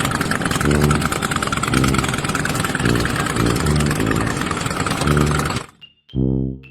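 Loud machinery or engine noise, a steady hiss with a low tone that pulses about once a second, cutting off suddenly near the end.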